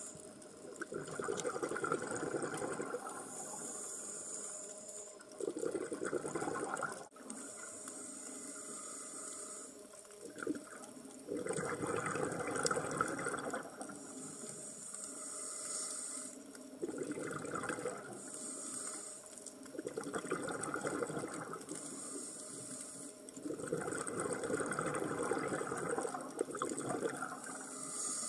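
Scuba diver breathing underwater through a regulator: a high hiss on each inhale alternating with a louder rush of exhaled bubbles, repeating about every four to five seconds.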